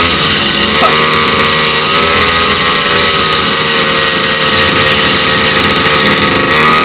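Brush cutter's small petrol engine, under 30 cc, running steadily on test. It drives a propeller spinning in the air at the end of a long shaft. The pitch rises a little in the first second or two, then holds.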